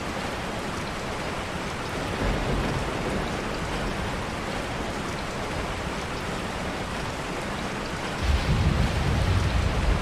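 Steady rain falling, an even hiss. A low rumble swells briefly about two seconds in and comes back louder near the end.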